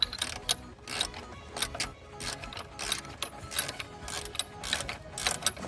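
Socket ratchet clicking in short, irregular runs as bolts are tightened on a strut, with background music underneath.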